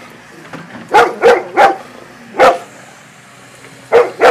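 A golden retriever barking at an excavator: a quick run of three barks about a second in, a single bark a moment later, and two more near the end. The excavator's engine runs steadily underneath.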